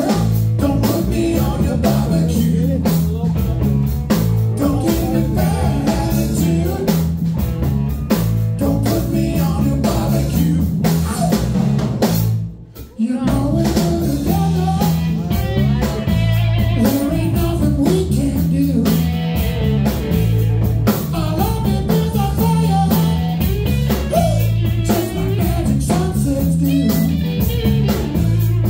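Live electric blues band playing: electric guitars, bass and drum kit, with a harmonica played into the vocal microphone over them. About twelve and a half seconds in, the band cuts out for a split second in a stop, then comes straight back in.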